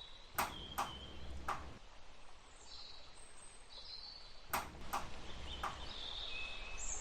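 Sharp clicks in two groups, three about half a second apart near the start and three or four more about halfway through, as a 5 mm hex wrench turns the tension adjuster of a self-closing door hinge. Birds chirp faintly in the background.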